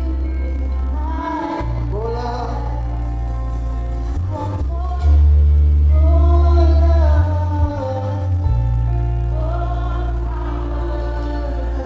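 A live worship band playing a slow song, with singers holding long sung lines over a strong sustained bass; the music swells louder for a couple of seconds in the middle.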